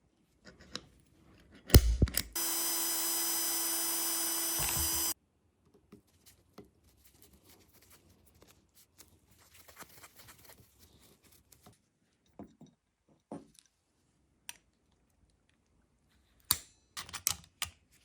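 A small power tool runs steadily for about three seconds, just after a knock. Faint handling noises follow, then several sharp clicks near the end.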